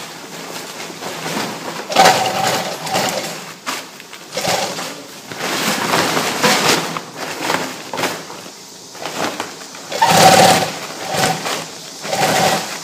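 Industrial rotating-hook lock stitch big-bag sewing machine stitching woven polypropylene bag fabric and lifting-loop webbing. It runs in short spells that start and stop several times, each with a steady humming tone.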